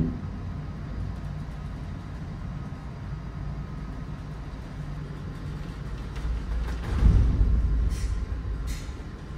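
Low steady rumble aboard a ship underway, with the bridge window wipers running. About seven seconds in comes a louder low creak and groan of the ship's steel plating, loud because of the rough weather, followed by two short sharp clicks.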